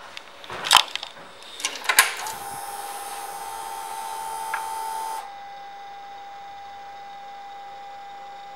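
Ignition of a 2012 Kawasaki Vulcan 1700 Vaquero switched on: two sharp clicks, then the electric fuel pump priming with a steady whine for about three seconds. The whine cuts off suddenly, leaving a faint steady tone, just before the engine is cranked.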